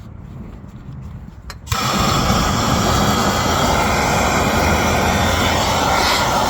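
Gas torch lit about two seconds in, its flame then hissing loudly and steadily as it heats a rusted exhaust manifold bolt to break it loose.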